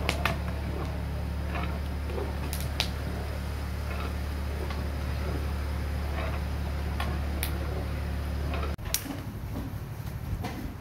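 A steady low hum with a few sharp clicks scattered through it. The hum cuts off abruptly about nine seconds in and gives way to an uneven, different background.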